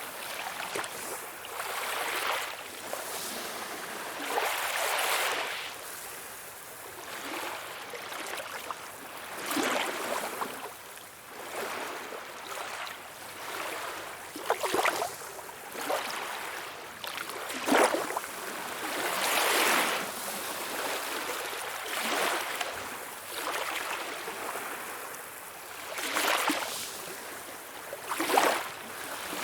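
Small waves splashing and lapping, in irregular swells every couple of seconds with a few sharper splashes and little deep rumble.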